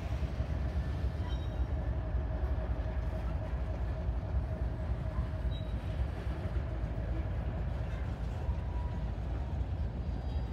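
Norfolk Southern freight train's cars rolling past on the rails: a steady low rumble with a faint high steady whine over it.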